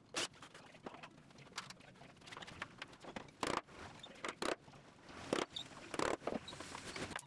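Scattered workshop knocks and clicks, with a few sharp taps of a small claw hammer about five and six seconds in.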